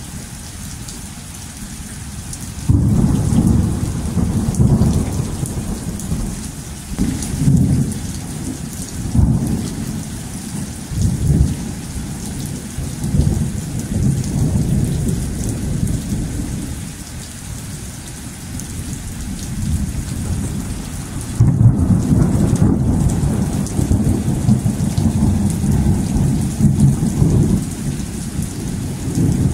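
Thunder rolling over steady rain. A low rumble starts suddenly about three seconds in and swells and fades in waves. A second loud roll starts suddenly about two-thirds of the way through and rumbles on.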